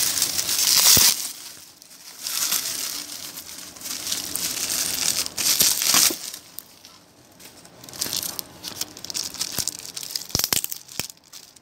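Plastic bubble-wrap packaging crinkling and rustling in several bursts as it is handled and opened, with a few sharp clicks near the end.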